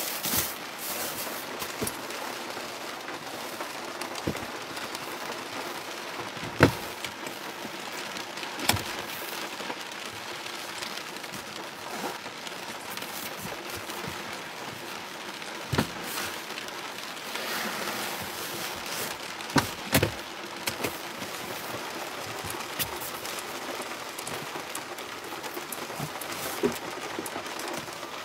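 Rain falling steadily, with about half a dozen sharp single drops or taps standing out above the patter, the loudest about six and a half seconds in.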